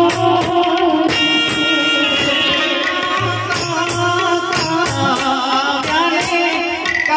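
Live Gujarati wedding folk song (lagna geet): a voice singing into a microphone over an electronic keyboard and hand drums, a dholak and a small tabla-style drum, keeping a steady rhythm.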